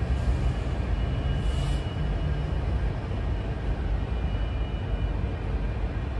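Union Pacific diesel locomotive running, a steady low rumble, with faint thin high tones over it.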